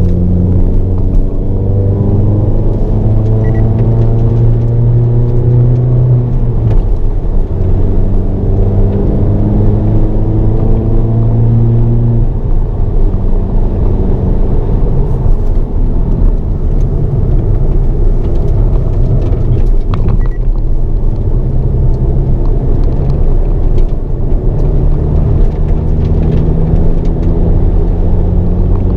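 Hyundai Avante N (Elantra N) 2.0-litre turbocharged four-cylinder engine heard from inside the cabin while lapping a circuit, its pitch rising and falling as the driver accelerates, shifts and lifts for corners; the note climbs hard in the first few seconds and drops away about twelve seconds in.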